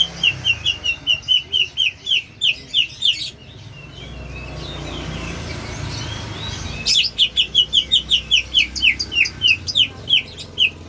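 Greater green leafbird (cucak hijau) giving its odd call: a fast run of short, high, downward-sliding notes, about five a second, which stops at about 3 seconds and starts again about 7 seconds in.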